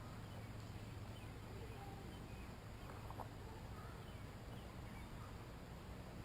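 Quiet outdoor ambience: a low steady rumble with faint, scattered bird chirps.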